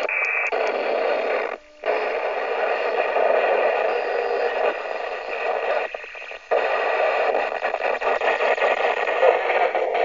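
Static and hiss from a CB radio receiver's speaker as the tuning knob is turned across the 27 MHz freeband. The noise drops out briefly about one and a half seconds in and dips again around six seconds.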